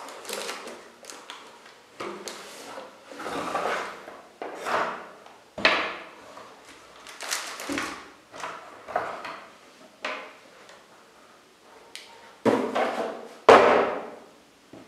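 Cardboard packaging and a plastic-wrapped keyboard being handled: a string of rustling scrapes and light knocks. The two loudest come near the end and carry a dull thump.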